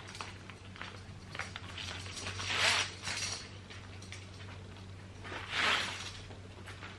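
Light clicking and rustling of a segmented metal belt being handled and fastened at the waist, with two short hissy swells about two and a half and five and a half seconds in.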